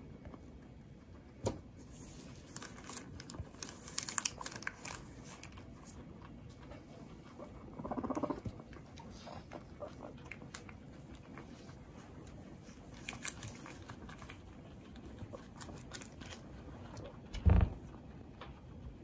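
Guinea pig eating, crunching its food in bursts of small crisp clicks. There is a short pitched sound about eight seconds in and a dull thump near the end.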